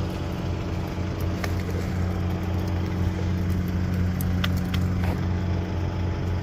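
A motor idling with a steady low drone, its hum even throughout, with a few light clicks over it.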